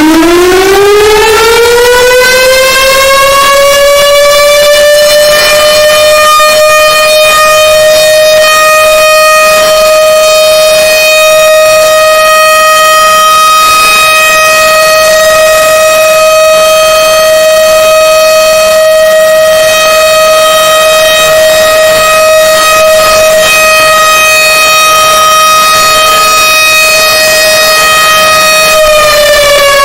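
Civil defense siren winding up in pitch, then holding one steady, loud tone with many overtones, and starting to wind down just before the end.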